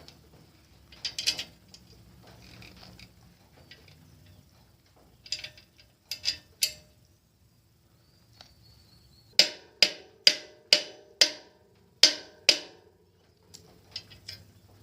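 Hand tools working a bolt on a bicycle front end. Several metallic clicks come from about nine seconds in, roughly two a second with a ringing tail, typical of a socket ratchet, with scattered metal handling sounds before them.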